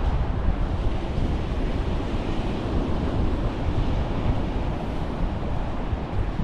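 Ocean surf washing onto the beach under strong wind buffeting the microphone, a steady rumbling noise that swells slightly about halfway through.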